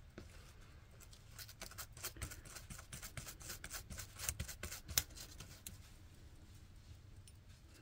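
Toothbrush bristles scrubbing a small vinegar-wet metal battery contact held in plastic tweezers: faint, irregular scratching and ticking strokes, with one sharper click about five seconds in, dying away near the end. The scrub is loosening green corrosion left by a leaking alkaline battery.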